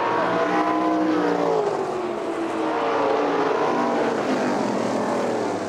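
Several winged sprint cars' V8 engines running hard on a dirt oval, their overlapping engine notes rising and falling as the cars pass.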